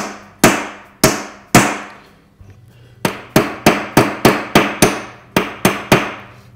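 Ball-peen hammer striking a steel punch and then the end of a hollow roller pin held in a bench vise, peening the pin over to rivet a new refrigerator roller wheel to its bracket. Sharp metal strikes, each ringing briefly: three about half a second apart, a pause, then a quicker run of lighter taps at about four a second.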